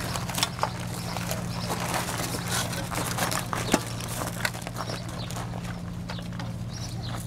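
Scattered clicks and knocks of plastic and metal parts as an e-scooter and its charging cable are handled, with one sharper click a little under four seconds in, over a steady low hum.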